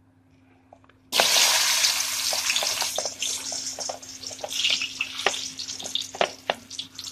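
Sliced taro root (arbi) dropped into hot oil in a steel kadhai: a sudden loud sizzle about a second in, then steady frying sizzle with scattered pops and crackles.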